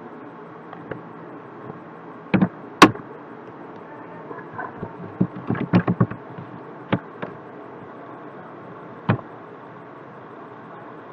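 Computer keyboard keystrokes and mouse clicks: a few sharp single clicks, the loudest about three seconds in, and a quick run of keystrokes about five to six seconds in, over a steady background hiss.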